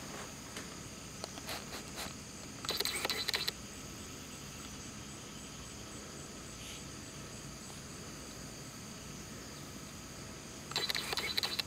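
Steady high chorus of insects such as crickets. It is broken twice, about three seconds in and near the end, by a short scratchy burst of rustling, with a few faint taps early on.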